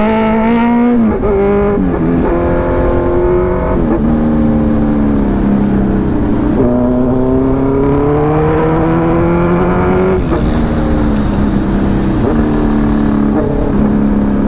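Superbike engine pulling hard under acceleration. Its pitch climbs and drops back at each upshift, several times, with the longest climb from about six and a half to ten seconds in, over a steady rush of wind.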